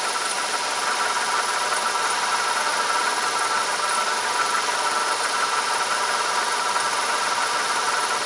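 Metal lathe running steadily under power, a constant machine whine with several high steady tones.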